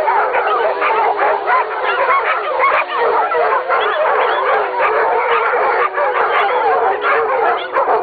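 A pack of many dogs howling together in a chorus: many overlapping, wavering howls at different pitches, sounding continuously without a break.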